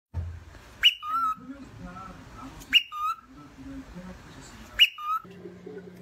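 Cockatiel calling three times, about two seconds apart, each call a sharp whistled note that leaps up and drops back down.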